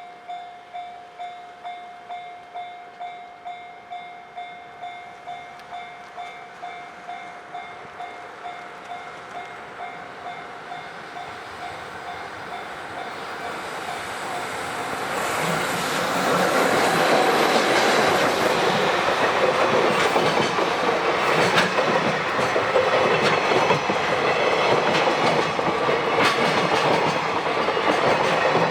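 Japanese level-crossing alarm ringing its repeated electronic 'kan-kan' bell, about two strikes a second. About halfway through, a freight train comes through and drowns it out: a loud rumble of wheels on rail with sharp clickety-clack over the joints.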